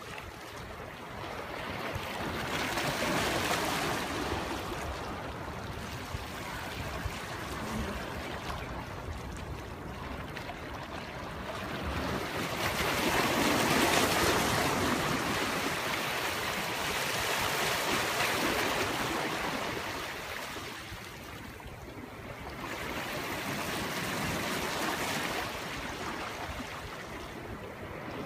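Small waves washing in on a calm sea, rising and falling in slow swells every few seconds, loudest about halfway through.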